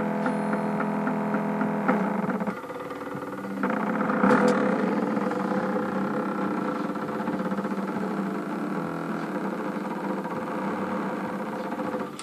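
Homemade belt-driven CNC machine running: the Dremel rotary-tool spindle hums steadily while the stepper motors drive the carriage. The sound drops about two and a half seconds in and picks up again about a second later.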